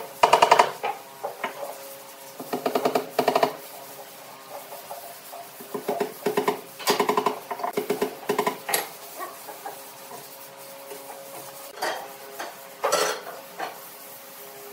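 A hammer tapping small nails part-way into a thick wooden plank. The strikes come in quick runs of light, ringing taps with pauses between them.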